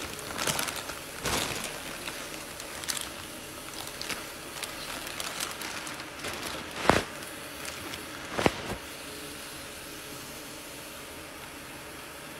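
Plastic carrier bag rustling and crinkling as it is handled and pulled open, with two louder crinkles near the middle. After that only a faint steady hiss.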